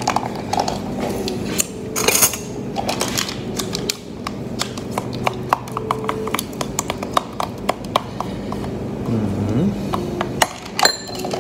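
Plastic tub of Greek yogurt being opened and handled: its peeled-back lid crinkles, then come a string of small clicks and taps as the yogurt is tipped out of the tub into a bowl.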